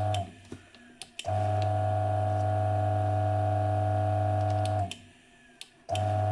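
G-Iota (DF64-type) coffee grinder motor running with a steady hum, switched off and back on twice with small clicks in the pauses, as the remote power switch plate is pressed.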